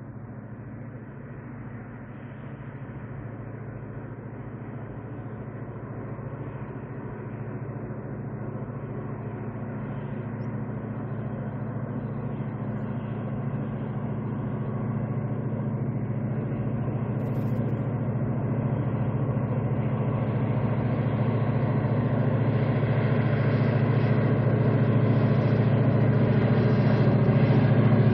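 Diesel locomotive engine hauling a freight train, a steady low drone that grows louder throughout as the train approaches.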